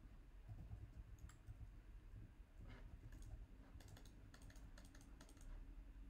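Faint computer mouse and keyboard clicks over a low steady hum: a few single clicks, then a quick run of clicks in the second half.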